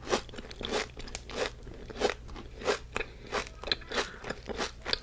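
Close-up crunchy chewing of a mouthful of chocolate-dipped Dubai chocolate cookie with its crisp kataifi filling, in a steady rhythm of about three chews every two seconds.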